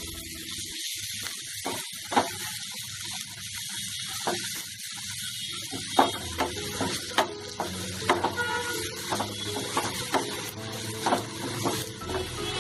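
Onions and spices sizzling in hot oil in a kadhai as a spatula stirs them, with a steady frying hiss and scattered clicks and scrapes of the spatula against the pan, more frequent in the second half.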